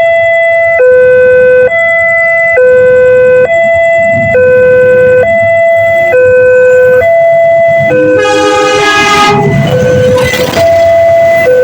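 Railway level-crossing warning siren sounding loudly in a two-tone pattern, switching between a higher and a lower note just under once a second: the signal that a train is approaching the crossing. About eight seconds in a horn sounds for about a second, followed by a brief loud rush of noise.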